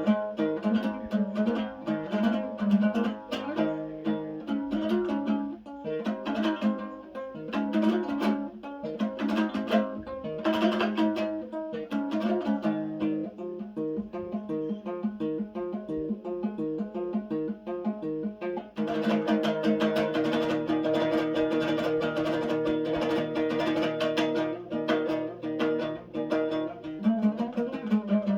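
Dombra playing a Kazakh küi: fast, rhythmic strummed plucking over a steady drone, the playing turning fuller and denser about two-thirds of the way through.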